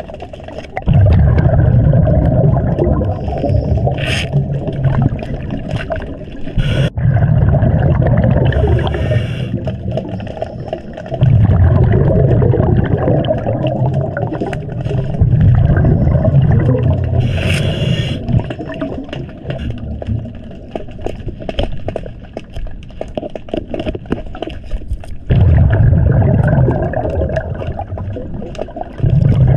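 Scuba diver breathing through a regulator underwater: six gusts of exhaled bubbles rushing past, each a few seconds long and starting abruptly, with quieter inhale stretches between them. Scattered small clicks and scrapes sound between the gusts.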